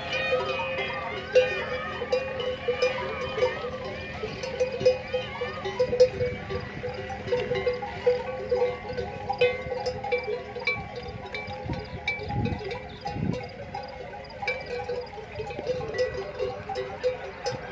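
Many neck bells on a herd of camels ringing together as the animals move: a steady ringing tone under uneven clinks and jangles.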